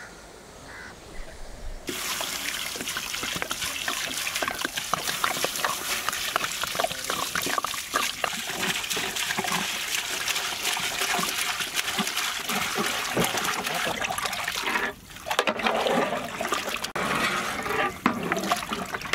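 Water poured in a steady stream into a large pot of mutton bone pieces, starting about two seconds in. Near the end the stream stops briefly and the water in the pot sloshes as a ladle stirs it.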